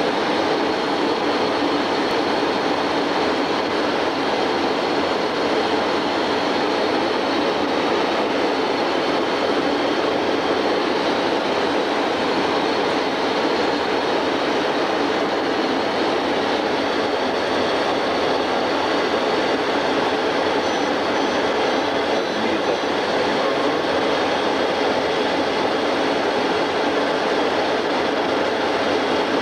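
Steady, unchanging noise inside a Yak-40 trijet: its three Ivchenko AI-25 turbofan engines and the air around the airframe, heard from within the cabin or cockpit.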